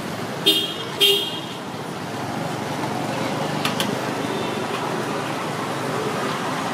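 A vehicle horn honking twice in quick short toots, over steady street traffic noise, with a light clink of tableware a few seconds later.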